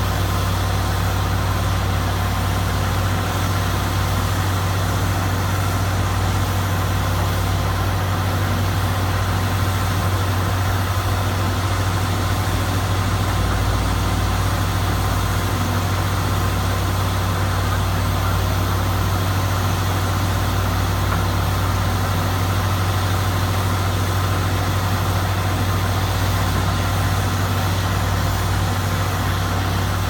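Hyundai 140LC-9R tracked excavator's diesel engine running steadily close by, a constant low hum with no sharp knocks or changes.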